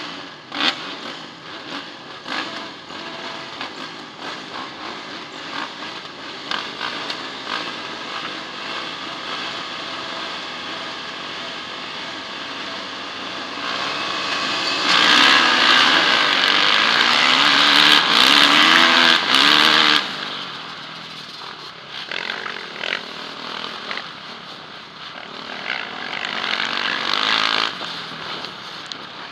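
Motocross bike engines revving unevenly at the start gate, heard from a helmet camera on a Yamaha. About halfway through they rise to a loud full-throttle launch for several seconds, with engine pitch climbing and falling through the gears, then drop back abruptly to the rider's own engine running on down the track.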